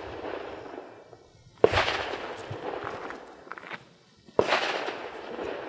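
Two gunshots about three seconds apart, each a sharp crack followed by a long fading echo. The tail of another shot fades at the start.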